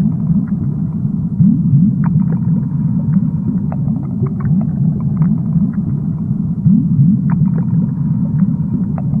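Underwater ambience over a coral reef: a dense low rumble full of short upward-sliding chirps, with scattered sharp clicks throughout.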